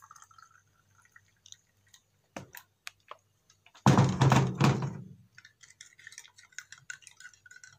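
Hot water poured faintly from a kettle into a mug at the start, then a few light knocks. About four seconds in comes a loud thump of handling lasting about a second. After it, a plastic spoon stirs coffee in the mug, making a quick run of light clicks and scrapes.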